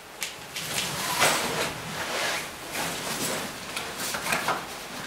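Irregular rustling and scraping of clothing and handled gear, a string of short scuffs with no steady rhythm.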